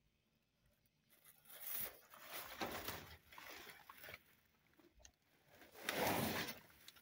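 Black plastic garbage bags and a flattened cardboard box rustling, crinkling and scraping as they are shifted around by hand. The rustling comes in several swells starting about a second in, the loudest about six seconds in.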